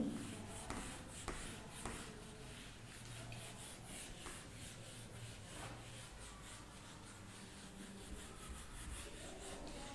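Whiteboard eraser rubbing across a whiteboard in repeated quick strokes, a faint rhythmic wiping, about three strokes a second. It starts with a sharp knock, the loudest sound.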